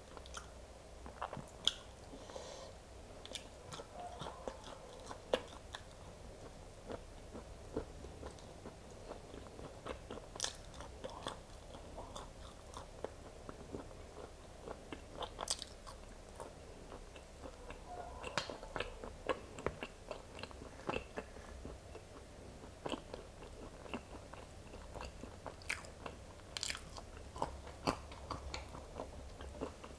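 A person biting and chewing boiled velvet bean (Mucuna) seeds, which are dense and chewy, with irregular small crunches and clicks.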